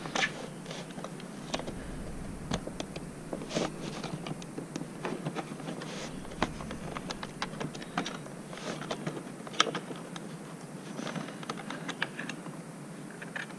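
Irregular light clicks and taps from hands handling small motorcycle parts and indicator wiring, with one sharper click a little before the last third.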